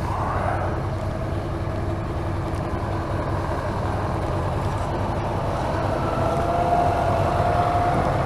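BMW R1250RT's boxer-twin engine running at road speed, with wind and road noise. From about six seconds in it gets a little louder, with a faint tone rising slightly in pitch.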